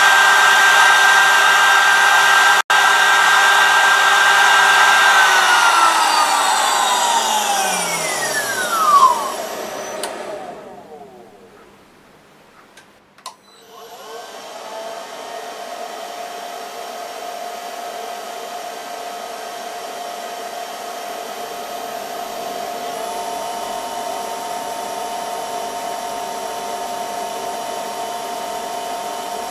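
High-speed CNC spindle motor driven by a variable frequency drive, whining steadily at 24,000 rpm (400 Hz), then spinning down with a falling whine over about five seconds to near silence. After a couple of faint clicks it starts up again and runs steadily at a much lower speed, its pitch rising near the end as the speed is turned up.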